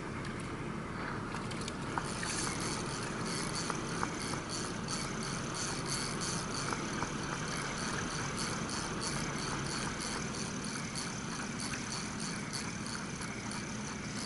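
Daiwa Certate spinning reel being wound fast, a rhythmic ticking whir of the turning rotor and gears that starts about two seconds in, over a steady wash of wind and water.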